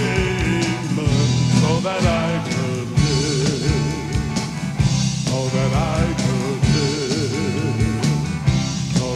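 A band playing a country gospel song, with a wavering lead melody over a steady beat of drums, bass and chords.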